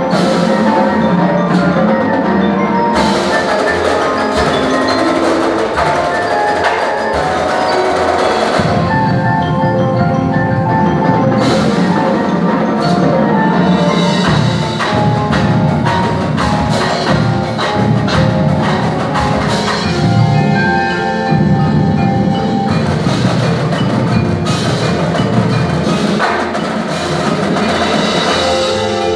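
High school percussion ensemble playing mallet instruments (marimbas, xylophones and bells) in a continuous, densely struck passage, the low notes filling in about eight seconds in.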